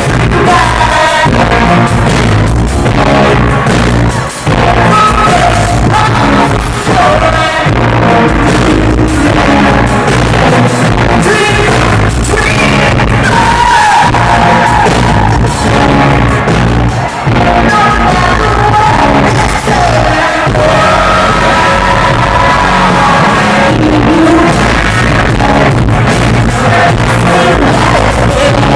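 Loud rock band playing live, with a vocalist singing over a steady drum beat.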